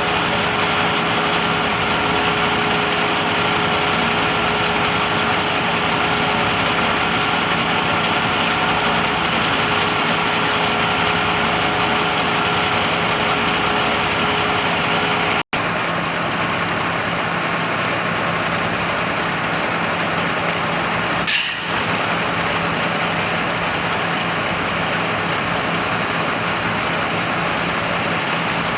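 Schwing truck-mounted concrete pump running steadily, its engine and hydraulics droning with a constant whine while the boom is opened. About halfway the sound cuts out for an instant and the whine is gone afterwards; a few seconds later there is a short, sharp hiss.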